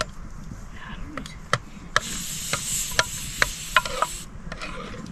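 Irregular sharp clicks and knocks, a few a second, with a steady hiss from about two seconds in until just past four.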